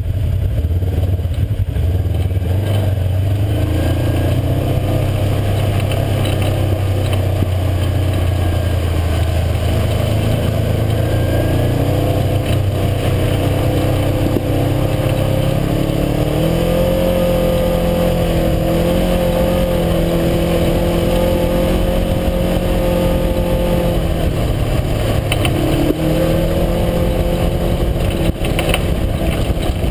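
UTV engine running while the machine drives along a trail, with a continuous rumble of engine and ground noise. The engine note climbs about halfway through, dips briefly near the end, then picks up again.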